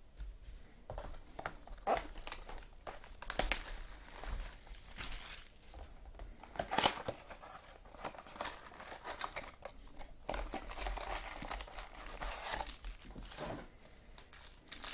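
Baseball card pack wrappers being torn open and crinkled by hand, in irregular bursts of crackling.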